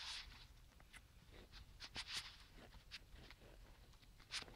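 Faint paper rustling as a paper tag is slid into a top-loading pocket of a handmade scrapbook mini album, with a few short crackles, the sharpest about two seconds in and near the end.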